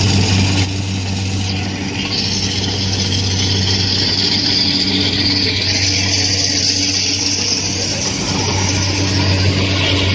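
Kubota King Pro rice combine harvester cutting paddy: its diesel engine runs at a steady working speed with a constant low hum, and a higher whirring layer sits above it.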